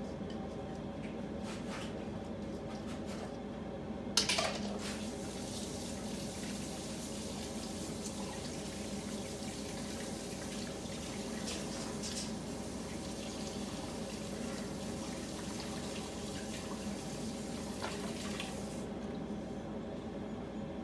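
Kitchen tap running into a sink while a bowl is rinsed by hand, starting with a sharp clatter about four seconds in and shutting off near the end. A steady low hum underneath.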